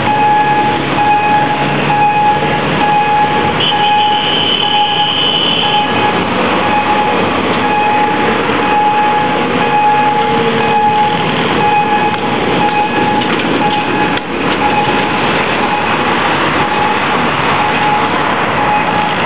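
Railway level-crossing warning signal sounding a repeating pulsed tone over the loud, steady noise of a train passing the crossing. A brief high tone cuts in about four seconds in.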